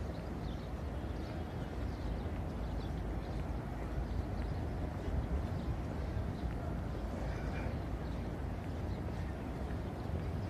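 Low, steady rumble of open-air background noise on a handheld microphone, with faint scattered ticks.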